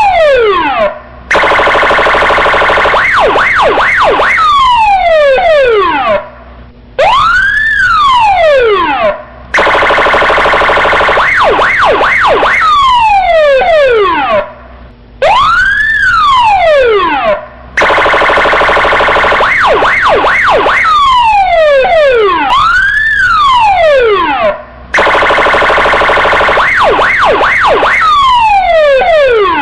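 Electronic police siren running through a repeating sequence about every eight seconds: one wail rising and falling in pitch, a harsh buzzing tone with a few quick up-and-down yelps in it, then falling sweeps, with short breaks between the parts.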